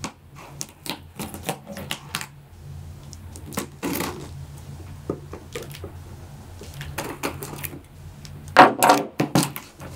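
A knife blade slitting packing tape on a cardboard box: a run of short scratching and clicking strokes, with louder tearing and cardboard rustling near the end.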